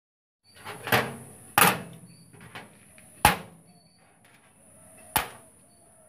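Steel parts of a homemade window lock being put down on a steel work surface: four sharp metal knocks spread over a few seconds, the second and third loudest, with a fainter clink between.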